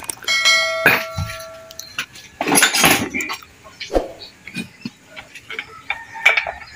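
A bell-like notification chime rings for about a second and a half near the start, then metal clinks of a hand wrench against the engine follow now and then.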